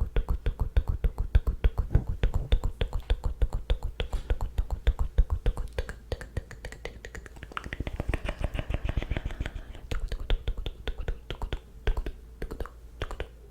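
ASMR mouth sounds close to the microphone: rapid wet tongue and lip clicks, several a second, with a softer breathy stretch in the middle.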